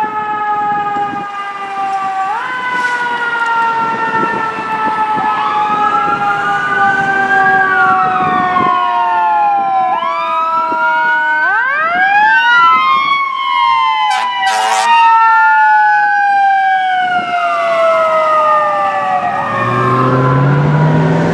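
Fire engine sirens on an emergency response: a mechanical siren winding slowly down in pitch, spun up again briefly about two and a half seconds in, overlaid by an electronic siren wailing up and down. A short burst of horn blasts comes about halfway, and a low steady tone joins near the end.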